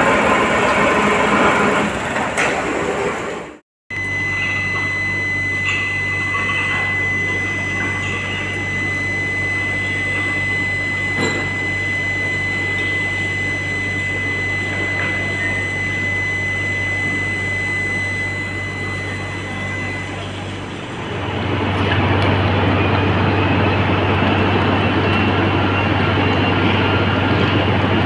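Molten iron being poured from a foundry ladle into sand moulds: a loud, rushing, crackling noise at the start and again in the last several seconds, with workers' voices. Between these, after a sudden cut, a steady electrical hum with a high, thin, steady whine that stops about two-thirds of the way through.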